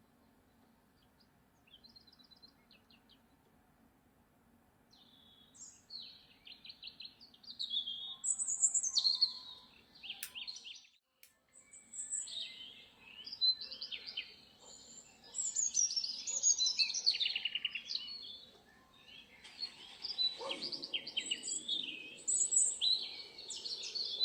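Birdsong: several songbirds chirping and trilling, sparse at first and busier from about five seconds in, over a faint low hum.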